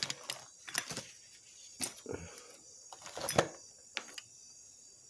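Scattered light clicks and taps of small tools and parts being handled, about six in all, the sharpest near the middle and a little later.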